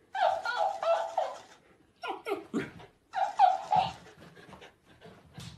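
A dog whining in high-pitched, wavering cries, in three bursts, the first about a second and a half long. Faint low knocks follow as it lunges.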